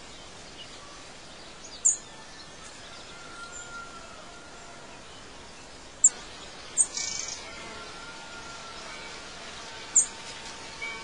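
Birds chirping over a steady hiss of outdoor ambience: four short, high chirps spaced a few seconds apart, with faint thin whistled notes between them.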